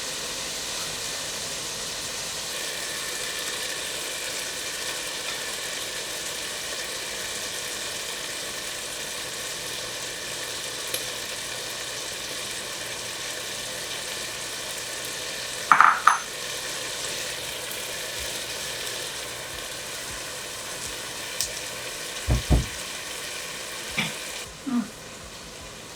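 Tomatoes and garlic frying in a pan, a steady sizzle. A loud double clink of a utensil on the pan comes about 16 seconds in, and a low knock about 22 seconds in.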